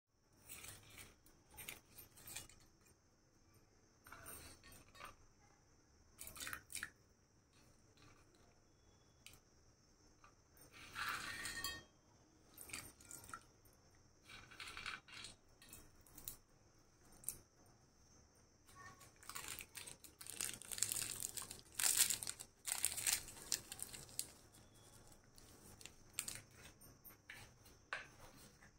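Whole spices, cashews and raisins being handled and dropped into a steel pot of soaking rice: scattered light rustles, crinkles and taps, with a longer rustle about eleven seconds in and a busier run of rustling and taps later on.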